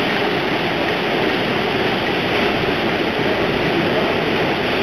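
Rough sea breaking and churning: a steady rushing noise with no distinct events.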